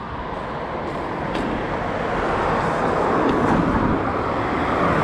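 Road traffic: a car's tyre and engine noise growing louder as it approaches and passes close by.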